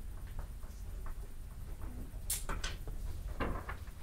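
Quiet classroom room tone: a low hum with light scratches and small clicks of students writing and shifting at their desks. A few sharper clicks come a little over two seconds in and again around three and a half seconds.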